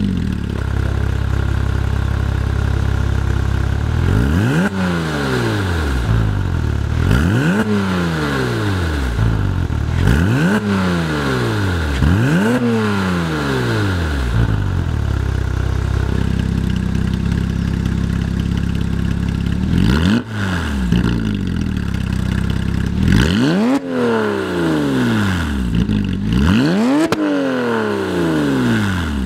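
Porsche 987 Cayman S flat-six on a catless-header Fi valved exhaust, idling just after start-up, then blipped four times in quick revs that rise and fall with the exhaust valves closed. From about the middle it idles fuller with the valves open, and is then blipped three more times.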